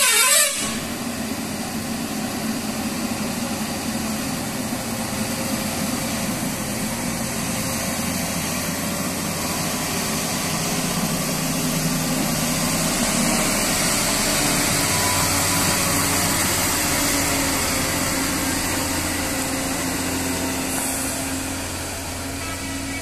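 Ashok Leyland lorry's diesel engine running as the truck rounds a hairpin bend, growing louder as it comes close and passes, then fading as it pulls away near the end. A warbling horn cuts off about half a second in.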